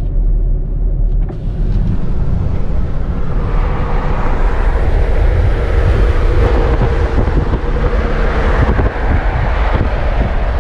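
Wind rush and road noise at highway speed, picked up by a camera outside a BMW X5 towing a car trailer. The rush builds over the first few seconds, then holds loud and steady.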